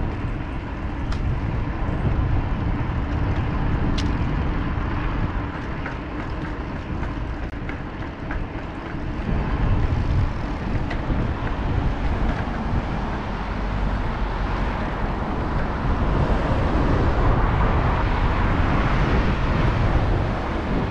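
Wind and riding noise on a bike-mounted action camera's microphone: a steady rumble and hiss that swells about halfway through and again near the end, with a few faint ticks early on.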